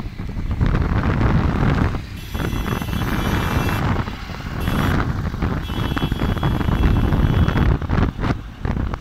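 Wind buffeting the microphone over road traffic noise, recorded from a moving vehicle. A thin high-pitched whine sounds twice, for about two seconds each time.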